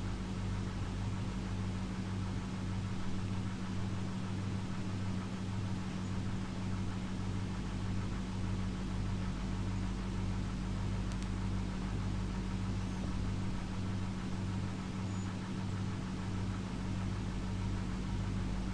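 Steady low hum with a faint hiss over it, the background noise of the recording setup; nothing else is heard.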